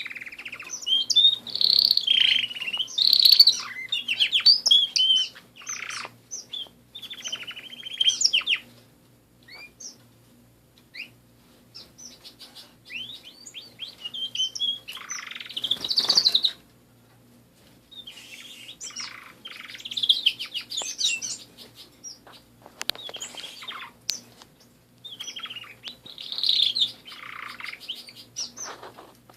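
Domestic canaries singing in an aviary: bouts of rapid trills, chirps and sliding whistles that stop and start with short pauses between them.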